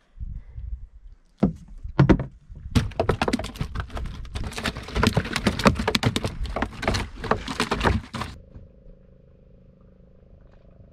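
Freshly caught rosy snappers flapping against the inside of a metal drum: two loud knocks, then a fast, irregular run of slaps and knocks for several seconds that cuts off suddenly, leaving a faint steady hum.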